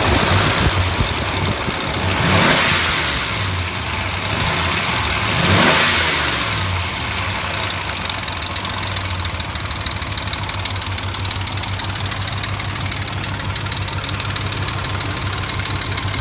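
2003 Dodge Ram 1500's 4.7-litre V8 engine running with a knock. It is revved up briefly twice in the first six seconds, then settles to a steady idle with a fast, even ticking knock. Some mechanics take it for the timing chain; others advise replacing the engine.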